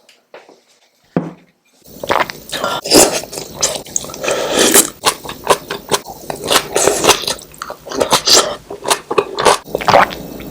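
Close-miked chewing and biting while eating spicy dried pollack soup, a dense run of irregular loud mouth clicks and noisy strokes that starts about two seconds in, after a quiet stretch with one short knock.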